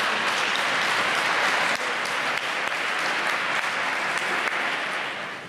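Crowd applauding steadily in a large hall, the applause easing off near the end.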